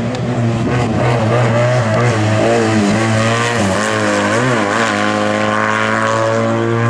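Race car engine running at high revs. Its pitch dips and wavers a few times midway, then holds steady.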